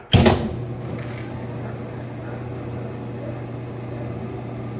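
Whirlpool direct-drive top-load washer: a sudden loud knock right at the start, then the machine running with a steady low motor hum.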